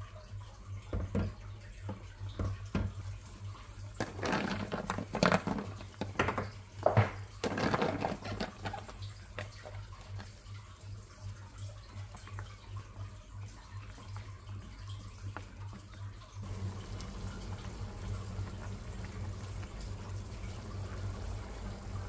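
Water splashing and running, with scattered knocks; a louder stretch of splashing about four seconds in, and a steadier flow from about sixteen seconds.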